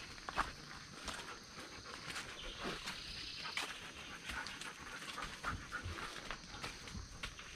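A dog panting, fairly quiet, among small irregular clicks and rustles.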